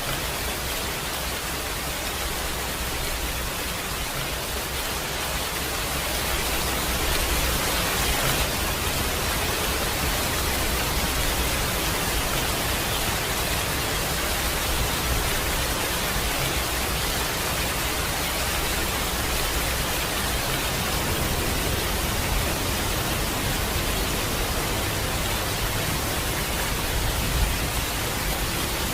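Steady rain falling, an even hiss that grows a little louder about six seconds in.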